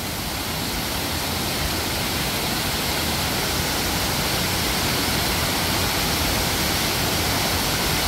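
A waterfall of about 15 m with a heavy flow, plunging into a pool and throwing up spray: a steady rush of falling water.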